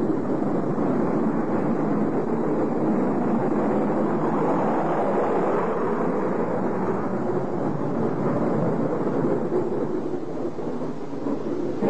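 Baade 152 four-engined jet airliner's turbojets running at takeoff power as it runs down the runway and lifts off: a steady, even rushing noise that eases slightly near the end.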